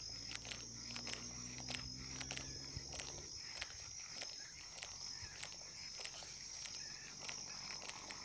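Faint natural ambience: insects singing a steady, high two-tone buzz, with scattered faint clicks throughout and a low hum that stops about three seconds in.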